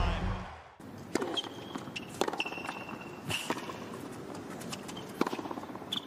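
Tennis rally on a hard court: sharp racket strikes on the ball about once a second, with short high sneaker squeaks on the court surface between shots.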